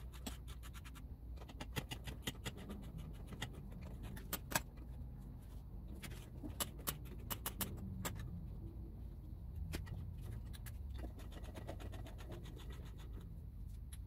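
Scattered sharp clicks and light metallic clinks, some in quick runs, from a ratchet wrench working the bolts of an outboard motor's water pump housing and the bolts being handled as they come off.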